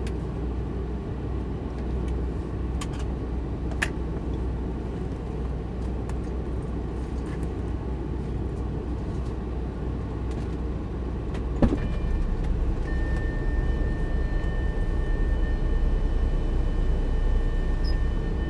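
Lamborghini Gallardo's V10 idling while parked, heard from inside the cabin. Almost twelve seconds in a sharp knock comes as the driver's door is opened, the engine sound gets louder, and a steady high warning tone starts soon after.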